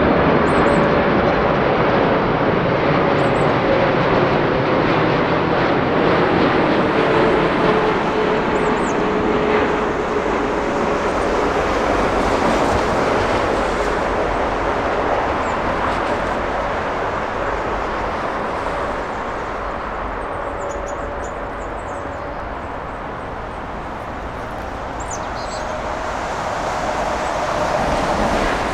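Jet airliner engines passing: a loud, steady rush with a whine that slowly falls in pitch and fades, then a rising whine as another jet approaches near the end.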